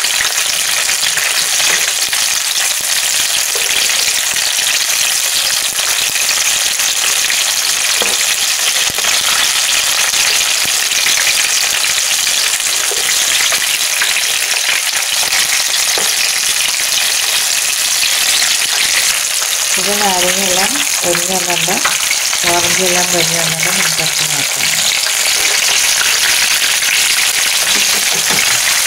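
Banana and spring onion fritters in ragi and gram-flour batter deep-frying in hot oil, a steady sizzle, with a spoon and slotted spatula stirring and turning them in the pan.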